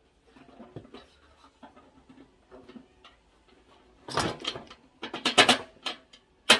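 Sheet-metal parts of a flatpack smoker barbecue being handled while a bolt is fitted through a leg and the firebowl. Faint rubbing and light taps at first, then a series of loud clanks and knocks from about four seconds in.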